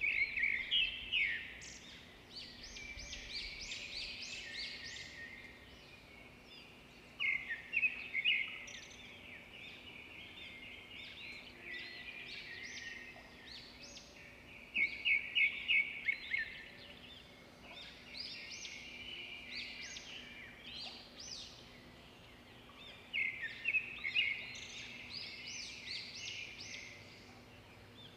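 Birds singing: a burst of quick, high chirping notes and rising whistles comes every seven or eight seconds, with softer twittering in between.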